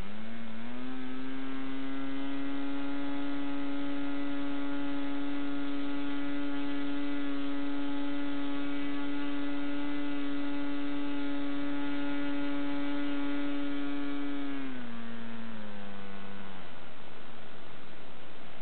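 OS 40LA two-stroke model engine on diesel conversion, swinging a 12x6 two-blade propeller, running at full throttle at about 8,600 rpm with a steady high-pitched note. Near 15 seconds in it is throttled back, the pitch dropping in two steps to a quiet idle around 4,300 rpm: the conversion now holds a low idle.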